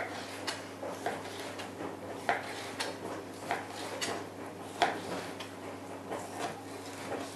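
Chef's knife slicing through a slab of pork back fat and knocking on the cutting board in a series of irregular knocks.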